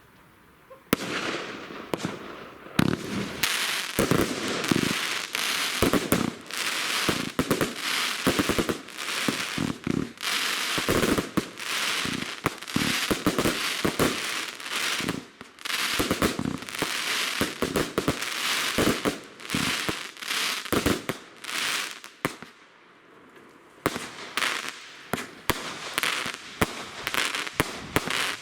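A consumer firework cake (battery) firing a rapid series of shots, each launch and burst with bangs and crackle, after a second of quiet at the start. The shots pause briefly late on, then start up again.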